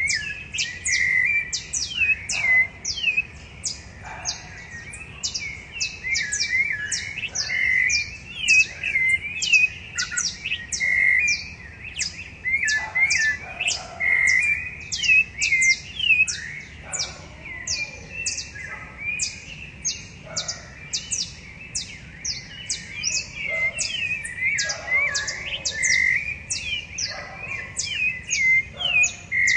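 Several rufous-bellied thrushes singing at once, their overlapping phrases of clear whistled notes and rapid high notes following one another almost without a break.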